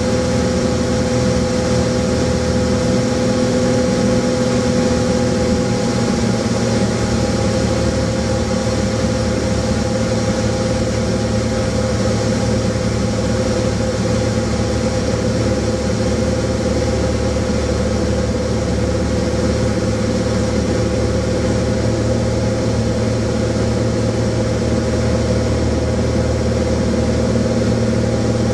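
Light aircraft's engine and propeller droning steadily at cruise, heard from inside the cabin, with an unchanging pitch and level.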